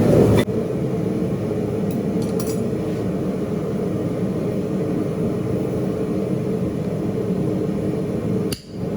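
Forge running steadily, a low even rush with a faint hum, that cuts off abruptly near the end.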